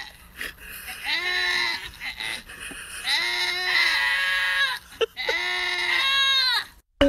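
Goats bleating: three long, wavering bleats, each rising and then falling in pitch, with short gaps between them.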